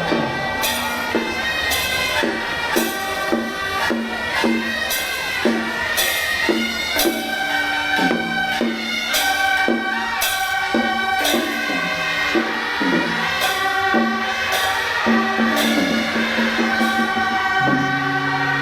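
Traditional Taiwanese temple-procession music: a reedy wind melody, in the manner of a suona shawm, over a steady beat of metal percussion striking a little under twice a second.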